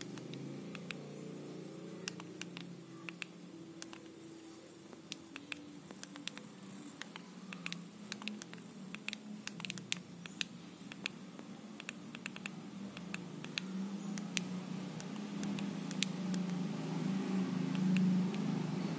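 Sharp clicks of the buttons on a GeekVape Aegis Solo vape mod, pressed in quick runs to step through its menus. A low hum underneath grows louder near the end.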